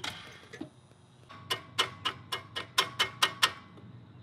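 A run of about nine sharp metallic clicks, roughly four a second, from a hand tool being worked on a small go-kart engine.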